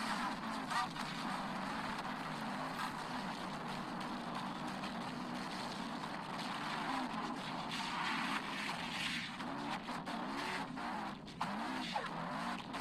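Dense, distorted, effects-processed soundtrack of an animated logo: a continuous noisy rush with warbling tones that waver up and down in pitch.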